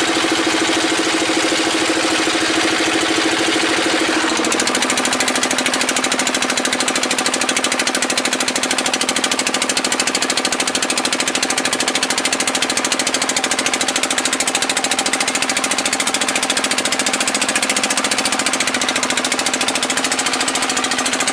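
Motor boat's engine running steadily at speed, with a regular firing pulse; its note shifts lower about four and a half seconds in.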